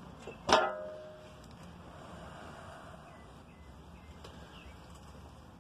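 One sharp knock of a hard object with a short ring, about half a second in. Then only faint low background noise.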